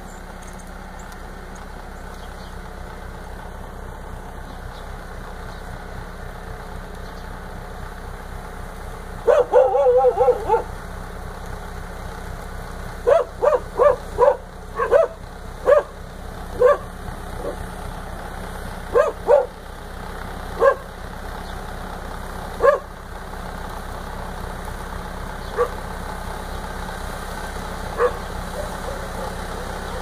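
A dog barking in short bursts: a quick cluster about ten seconds in, a string of barks through the middle, then a few single barks later. Underneath is the steady drone of a tractor-mounted snowblower throwing snow, growing slightly louder toward the end.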